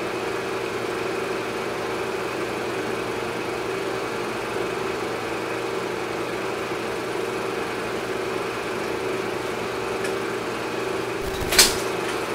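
A steady mechanical hum: a constant low drone with a hiss over it, broken once near the end by a single sharp click.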